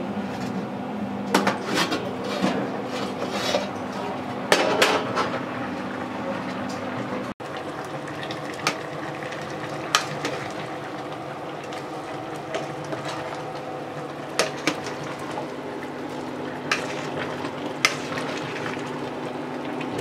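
A metal spoon stirring and knocking against a cooking pot of chicken curry, with scattered clinks and scrapes, over a steady low hum.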